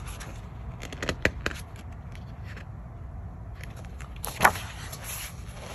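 Paper pages of a large art book being handled: a few light clicks about a second in, then the sharpest, loudest rustle about four and a half seconds in as a page is turned.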